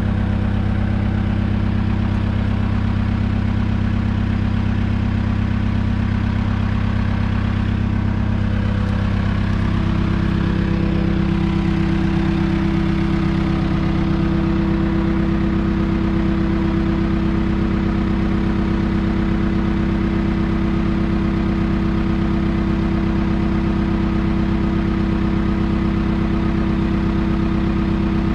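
An engine idling steadily, its pitch shifting slightly about ten seconds in.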